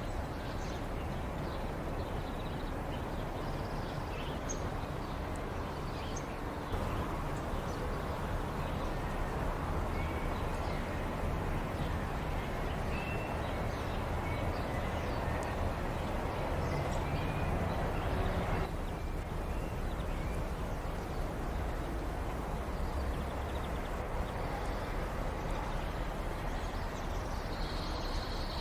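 Ambience of a city square: a steady hum of distant traffic with faint bird chirps over it. The background changes abruptly about 7 seconds in and again about 19 seconds in, as one recording gives way to another.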